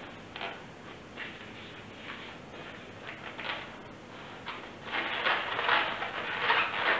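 Latex 160 modelling balloons being twisted and pressed together by hand, latex rubbing on latex: a few short scrapes at first, then a longer, louder run of rubbing about five seconds in.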